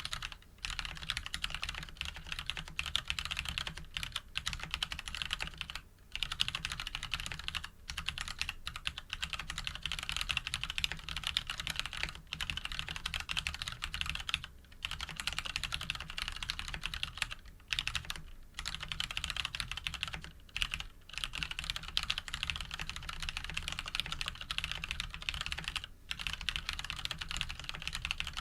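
Continuous typing on a mechanical keyboard with lubed Cherry MX Brown switches (Krytox 105) in a steel plate, with JTK keycaps. A fast stream of keystroke clacks, broken every few seconds by a brief pause.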